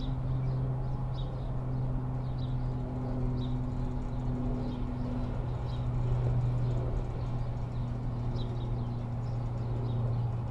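Freight train rumbling with a steady low drone, with short high chirps or squeaks recurring about once a second.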